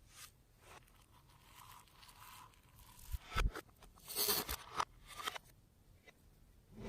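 Slime being worked and mixed by hand, giving sticky tearing, crackling and scraping noises in irregular bursts, loudest about three to four and a half seconds in.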